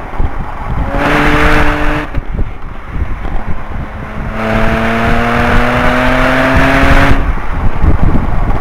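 2010 Audi S4 (B8) supercharged 3.0-litre V6 at full throttle in second gear, then a shift to third and a couple of seconds of lighter throttle, then pulling hard again in third with its note climbing steadily, until the driver lifts about seven seconds in. Road and wind noise under it throughout.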